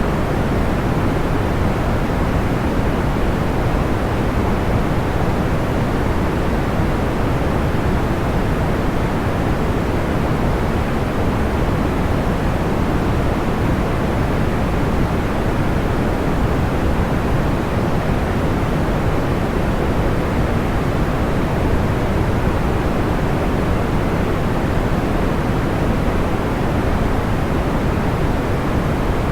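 Soft, steady white noise with a deep, muffled tone (more like pink or brown noise than hiss), unchanging throughout, with no audible crackle of fire.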